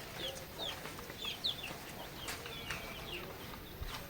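Chickens calling: many short, high, falling chirps, several a second, with a few lower clucks and a couple of faint clicks.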